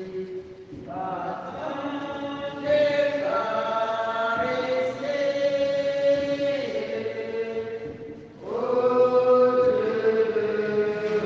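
A slow sung hymn in long held notes, chant-like. The phrases pause briefly about a second in and again near the eight-second mark.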